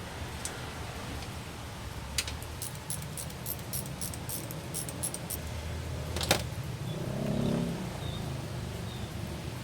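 A quick run of light metallic clinks and jingles, like small metal parts or tools being handled, then a single sharp click, over a steady low hum.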